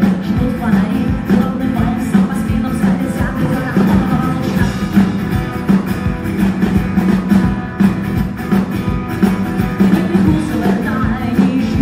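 Live rock song: a woman singing to her strummed acoustic guitar over a steady beat, with a short stretch in the middle where she stops singing and only the instruments play.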